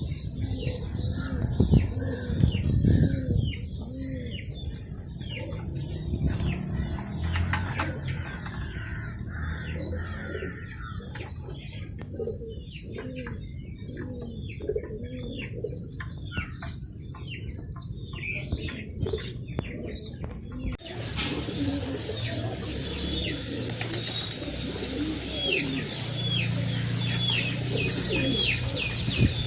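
Domestic pigeons cooing low, with rapid, repeated high squeaks and wing flapping, typical of pigeon chicks begging while a parent feeds them.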